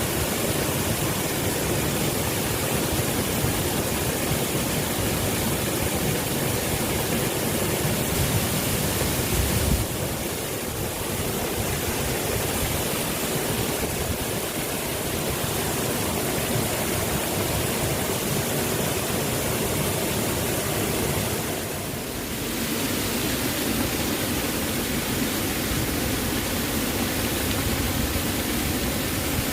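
Waterfall: a steady rush of falling water, an even hiss spread from deep rumble to high hiss, that dips slightly twice.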